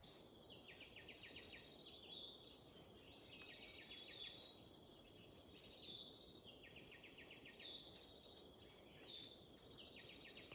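Several birds calling in forest: faint, overlapping high chirping phrases that repeat throughout, over a soft background hiss.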